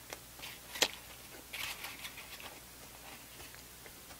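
Thin plastic wrapper and plastic glove crinkling as they are handled, with one sharp click about a second in and a short burst of crinkling soon after, then small faint ticks.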